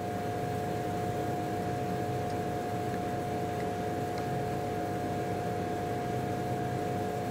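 Steady background hum and hiss with a constant mid-pitched tone, unchanging throughout; the pipetting of reagent makes no distinct sound.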